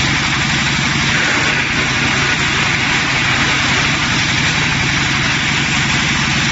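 MFJ series wood chipper running steadily: a loud, even machine noise with a rapid low pulse under a broad hiss.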